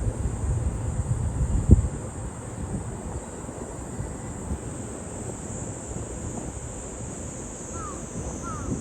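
Wind rumbling on the microphone, with one thump about two seconds in, over a steady high hiss of insects; a few short falling chirps come near the end.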